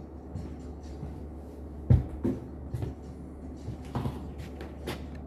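Several sharp clicks and knocks, the loudest about two seconds in and a second soon after, with fainter ones later, over a steady low hum.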